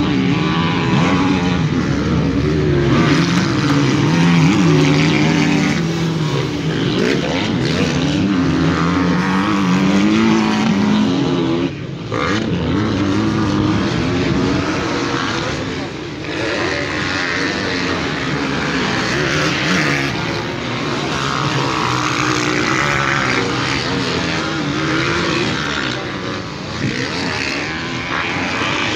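Several motocross bikes' engines running hard around the track, their pitch climbing and falling as riders rev and shift, with a brief dip about twelve seconds in.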